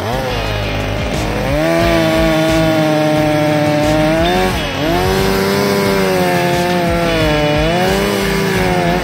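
Husqvarna Rancher 455 two-stroke chainsaw running at high revs through wood: it revs up about a second and a half in, then its pitch sags briefly twice as the chain loads up in the cut and recovers.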